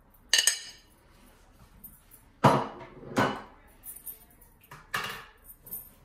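A metal spoon clinking on a ceramic plate and dishes knocked and set down: five or so separate clinks and knocks, the two loudest about three quarters of a second apart midway through.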